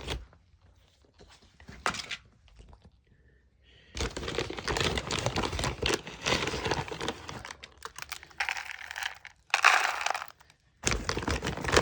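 A plastic bag crinkling and rustling as it is handled, in scattered short bursts at first and then almost continuously from about four seconds in, with a brief pause near the end.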